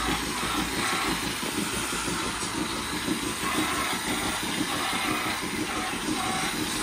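Milking parlour machinery running steadily: the constant mechanical drone and hiss of the milking system.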